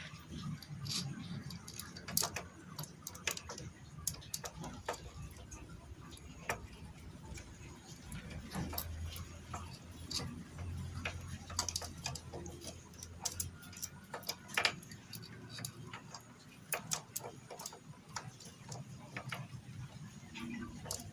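Irregular light metallic clicks and taps, tools and parts being handled while working on a motorcycle engine, over a low steady hum.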